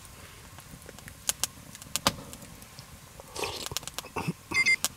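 Eating from an instant keema curry rice cup with a spoon: a few sharp clicks and taps of the spoon against the cup, a brief rustle about three and a half seconds in, and a short high squeak near the end.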